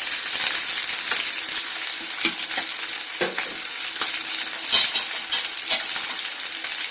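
Onion, green chillies and curry leaves sizzling in hot oil in a pan, being stirred, with a steady hiss broken by scattered crackles and knocks.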